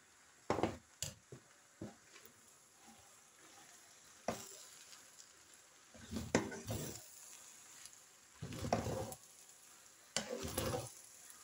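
Egg noodles being stir-fried in a hot pan: a few sharp knocks of utensils and a glass bowl against the pan in the first seconds, then three longer spells of stirring and tossing with tongs, the noodles sizzling in the pan.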